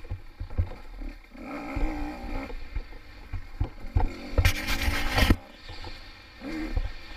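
Small-bore two-stroke enduro dirt bike being ridden hard on a rough woods trail, its engine revving up and falling off again and again with the throttle, with frequent low knocks from bumps and the suspension. About four and a half seconds in there is a loud hissing rush lasting about a second.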